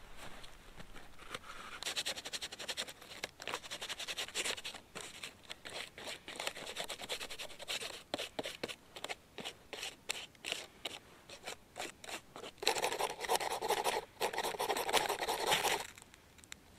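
Dry birch bark being rubbed, peeled and scraped by hand as fire tinder: quick scratchy strokes, with a louder, denser run of scraping about three seconds before the end.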